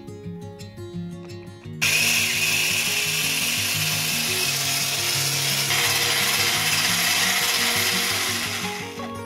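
Electric whisk beating eggs, sugar and oil in a glass bowl. It starts suddenly about two seconds in, runs steadily and dies away near the end, with guitar music underneath.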